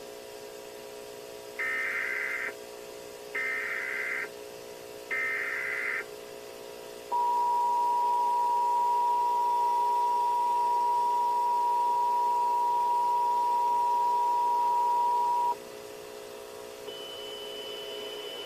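Emergency Alert System alert tones: three short bursts of SAME header data, each about a second long, then the two-tone EAS attention signal held steady for about eight seconds before cutting off. The header opens a Child Abduction Emergency (Amber Alert).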